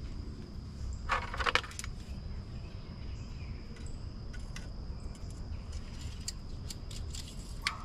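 The GMC Canyon's plastic engine top cover being set back in place over the 2.5 L engine: a quick cluster of clicks and clacks about a second in. This is followed by a few scattered light clicks as the dipstick is handled and slid back into its tube.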